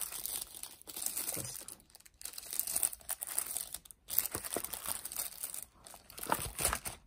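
Clear plastic bag around a battery charger crinkling and rustling as it is handled, in irregular fits with short pauses about two and four seconds in.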